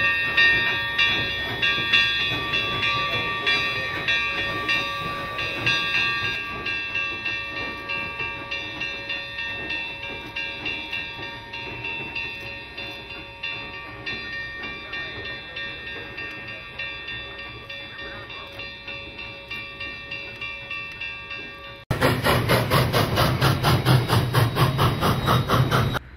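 Alco-built 2-8-0 Consolidation steam locomotive No. 18 working a passenger train: rhythmic exhaust chuffs about two a second, fading steadily as it draws away, with steady high ringing tones over them. About 22 seconds in the sound cuts to much louder, faster exhaust beats heard close up.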